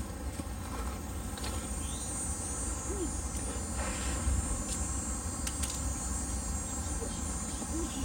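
Insects chirring in a steady, high-pitched drone, over a low rumble from the handheld camera being carried along.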